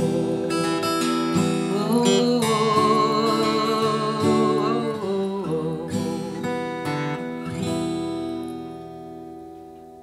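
A woman singing to her own strummed acoustic guitar, a folk song reaching its end. The voice stops about halfway through, a few more strums follow, and a final chord rings and fades out near the end.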